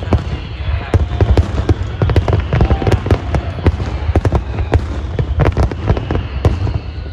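Fireworks going off in rapid, irregular succession: many sharp bangs and crackles, several a second, over a steady low rumble.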